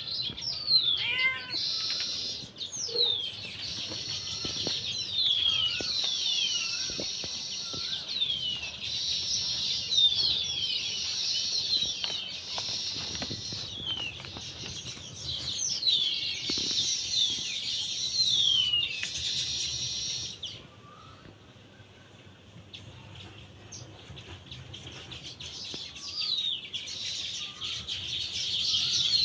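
Birds chirping and calling, with many quick falling whistles and short chirps repeating again and again. The calls drop away for a few seconds after about twenty seconds, then start up again.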